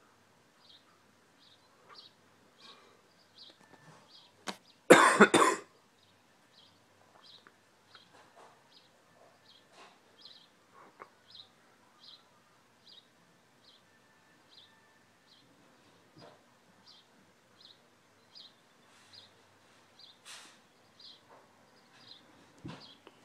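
A bird chirps over and over, one short high chirp nearly twice a second. About five seconds in, a person coughs once, the loudest sound.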